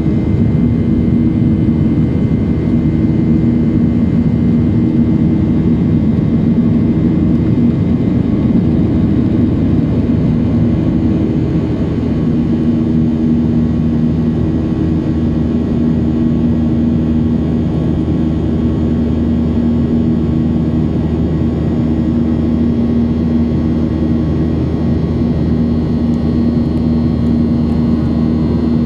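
Steady noise of a Boeing 737-800's CFM56-7B jet engines and airflow heard from inside the passenger cabin, an even rush with a low steady hum.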